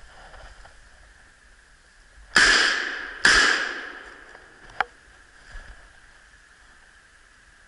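Two loud hunting rifle shots a little under a second apart, each echoing through the forest as it dies away, followed by a short sharp click.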